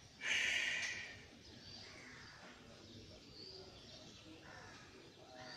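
A short, loud rush of hissing noise about a quarter second in, lasting under a second. After it, faint bird chirps come now and then over a low outdoor background.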